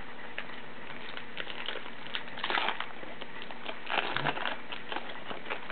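Foil wrapper of a baseball card pack crinkling as it is torn open and handled: scattered small crackles, with two louder bursts, one about halfway through and one about four seconds in.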